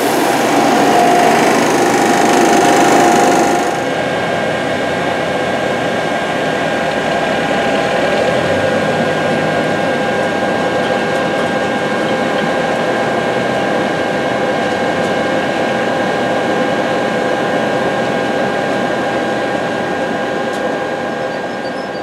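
Corn seed hissing down a seed tender's conveyor hose into a planter tank for the first few seconds. After an abrupt change, an engine runs steadily with a constant whine.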